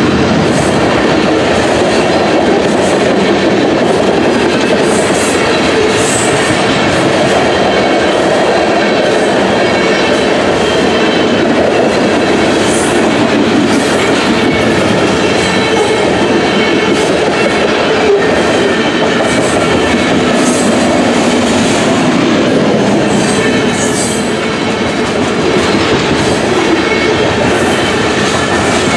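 Covered hopper cars of a grain train rolling past, steel wheels clicking over the rail joints in a steady rumble, with a thin squealing ring from the wheels at times.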